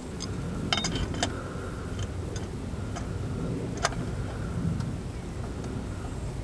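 A large adjustable wrench clinks and ticks against the oil sump drain plug as the plug is tightened: a handful of sharp metal clicks in the first four seconds, the loudest near the four-second mark, over a steady low rumble.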